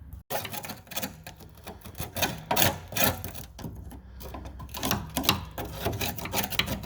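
Rapid, irregular clicking and clattering, like parts or tools being handled, starting suddenly about a quarter second in.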